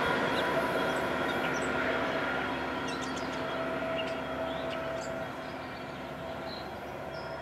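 A passing Amtrak electric train receding, its steady rail noise fading away over several seconds. A few faint, short, high chirps sound partway through.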